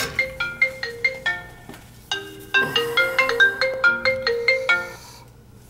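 Mobile phone ringing for an incoming call: a quick marimba-style ringtone melody, played twice, that stops about five seconds in.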